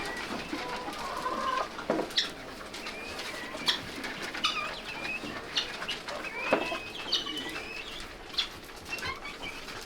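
Barn poultry clucking and giving short chirpy calls on and off, with a few sharp knocks in between.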